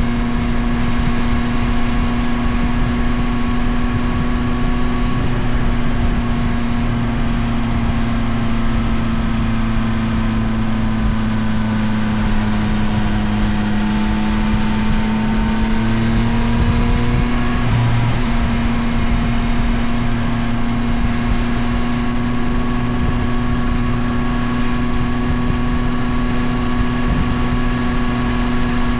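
Yamaha CP3 890 cc inline-three engine of a Tracer 9 GT+ motorcycle running at steady cruising revs, with wind and road noise under it. The revs sag a little about midway, climb back, and shift briefly about two-thirds of the way in before holding steady again.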